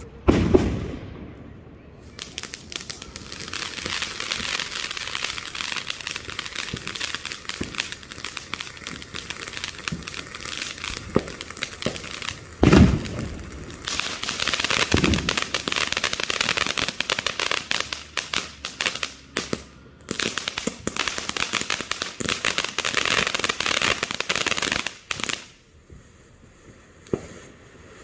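TNT Centennial Fountain, a ground fountain firework, spraying sparks with a dense crackling hiss. There are two loud thumps about halfway through, and the spray drops off sharply near the end.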